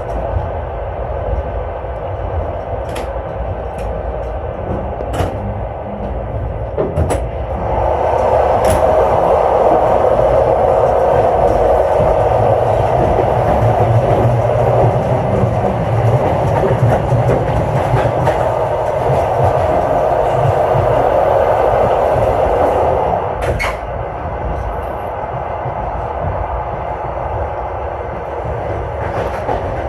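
Passenger train running on the rails, heard from inside the carriage: a steady rumble with scattered clicks from the wheels and track. The running noise grows louder about eight seconds in and eases back down near twenty-three seconds.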